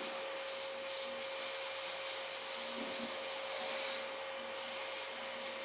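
Aerosol hairspray can hissing in one long spray that stops about four seconds in, with a faint steady tone underneath.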